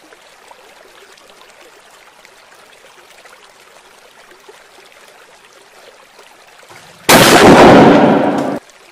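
Sutli bomb firecracker exploding in shallow river water: a sudden loud blast about seven seconds in, with spray falling, that cuts off abruptly after about a second and a half. Before it, only a faint steady hiss of flowing water.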